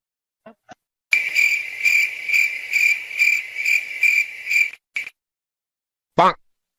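Cricket chirping sound effect, the stock crickets used to mark an awkward silence: a high chirp pulsing about twice a second for nearly four seconds, then stopping. A brief pitched blip follows near the end.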